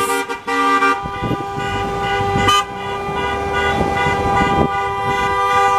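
Car horns of a caravan of passing cars, several sounding together: a few short toots, then long overlapping held blasts, loud and close, with the low rumble of a vehicle passing about a second in.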